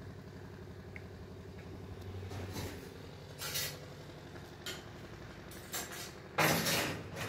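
A steady low engine hum, with a few short noisy scuffs over it; the loudest comes near the end.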